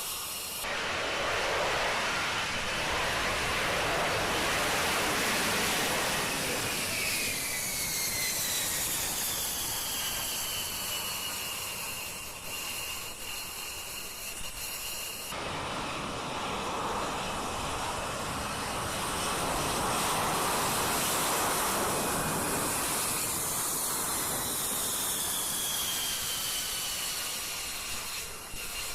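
F-35B Lightning II's F135 turbofan running, heard twice in succession: each time a loud jet roar builds and then eases while a high whine falls in pitch. The first is cut off abruptly about fifteen seconds in and the second follows straight away.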